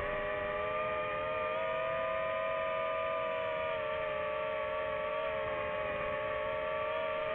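FPV quadcopter's electric motors and propellers whining at a steady pitch, heard close up from the camera mounted on the drone, with a slight step up in pitch about a second and a half in.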